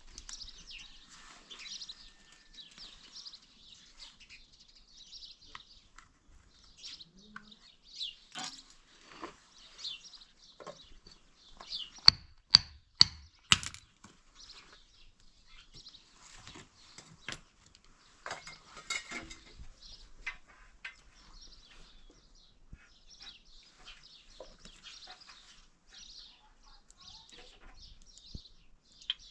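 Small birds chirping on and off in high, short calls, with four sharp knocks in quick succession about halfway through.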